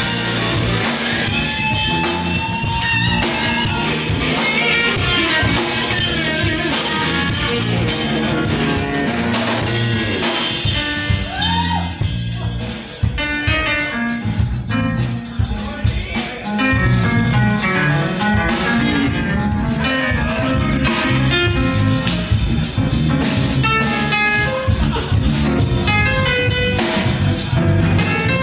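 Live band playing, with electric guitar and a drum kit keeping a steady beat.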